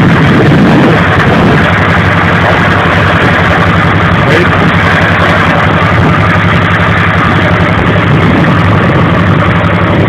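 Small motorboat's engine running steadily under way, with a steady rush of wind and water over it.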